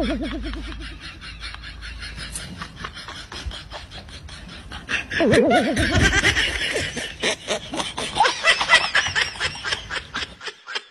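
People laughing in a fast, even run of snickering pulses, louder from about five seconds in. A short warbling tone wobbles up and down at the start and again about five seconds in.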